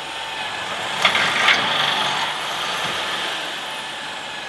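Electric drill running a cobalt bit into a steel bolt, a steady mechanical noise that grows louder and harsher from about one second in for about a second as the bit cuts.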